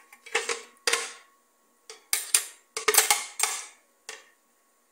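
Metal spoon scraping and knocking against the inside of a blender jar, digging out blended pepper-and-spice paste: a string of short scrapes and clatters, about nine in all.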